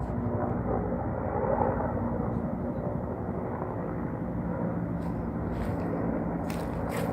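Bell UH-1N Twin Huey helicopter flying by: the steady drone of its twin turboshaft engines and two-bladed rotor, holding several steady low tones.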